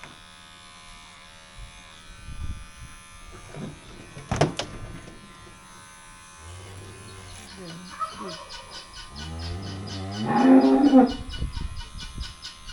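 Electric clippers buzzing steadily while the hair around a calf's horn buds is clipped for disbudding. A cow moos, a lower call about seven seconds in and a louder one about ten seconds in, with a sharp knock about four seconds in.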